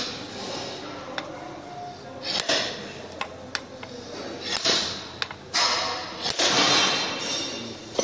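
Steel hammer striking the head of a second hammer, which is held as a drift against a combine harvester pulley hub on a wooden block to knock it off its shaft. Several sharp metallic clanks come a second or two apart.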